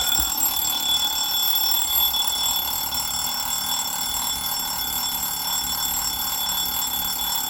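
1960s Garant mechanical alarm clock's bell ringing continuously. The clock's owner calls its bell very beautiful and specific to the 60s.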